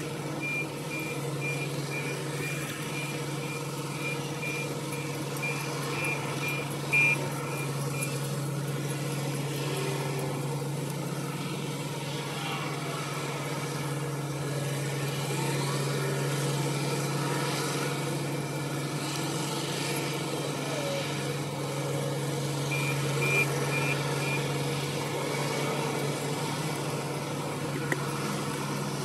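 Wheel loader diesel engines running steadily, with a reversing alarm beeping in an even series of high pulses for the first eight seconds and again briefly near the end. A sharp knock stands out about seven seconds in.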